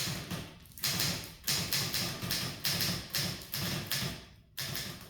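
Manual typewriter being typed on: about eight heavy keystrokes at an uneven pace, each trailing off briefly, stopping shortly before the end.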